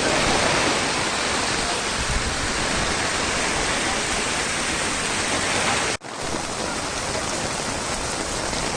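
Heavy rain and rushing floodwater making a steady, dense hiss. There is a sudden brief break about six seconds in, after which the water sound carries on slightly quieter.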